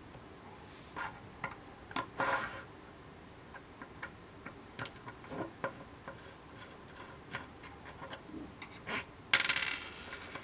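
A screwdriver backing long screws out of a small metal display module: scattered small clicks and short scraping rubs, with a louder scrape about two seconds in and a harsher rasp about nine seconds in.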